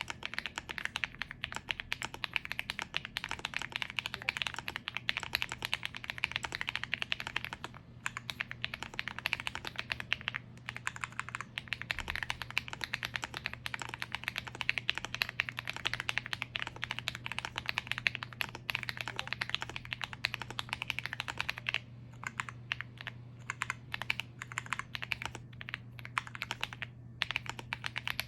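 Steady typing on an Akko ACR Pro Alice Plus mechanical keyboard with Akko CS Wine Red linear switches, GMK keycaps, an aluminium plate, and PE foam and tape mods. It gives a fast run of key clacks, broken by brief pauses a few times.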